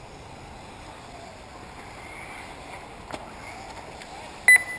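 A short, high electronic beep in two quick pulses near the end, typical of the lap-timing system at an RC race. Under it runs a steady low background noise with a faint, wavering whine from electric 1/10-scale buggies racing on the track.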